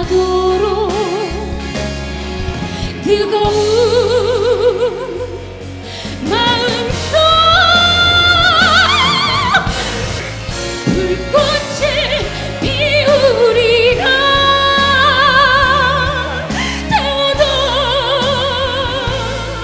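A woman singing a slow Korean trot ballad over band accompaniment, with long held notes and wide vibrato.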